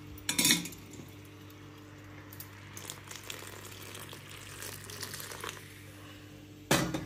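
Heated milk poured from a steel pot into a kadhai of cooking sabudana, a faint pouring splash, with a sharp metal clank of the steel pot about half a second in and another near the end.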